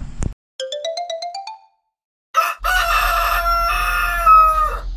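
A quick rising run of about eight short chime notes, then a rooster crowing once for about two seconds, falling off at the end. It is a wake-up cue marking morning at the cut.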